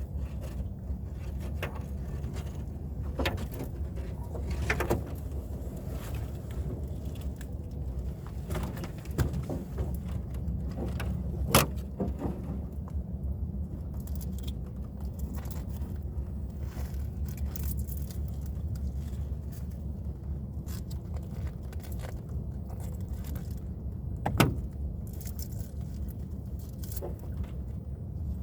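A small fishing boat's motor running steadily with a low hum. Over it come a few sharp knocks and some lighter clattering, the loudest about 11 seconds in and again near the end.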